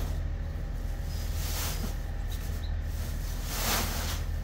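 Dairy feed pellets pouring out of a 50-pound sack into a plastic bin: a rushing hiss that swells twice, over a steady low rumble.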